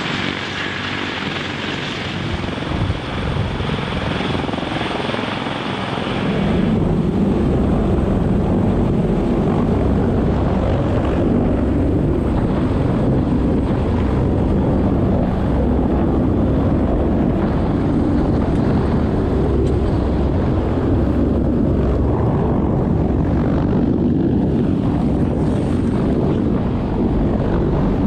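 CH-53 heavy-lift helicopter's rotors and turbine engines running steadily. About seven seconds in, the sound turns suddenly louder and deeper: the rotors are right overhead, with their downwash gusting on the microphone.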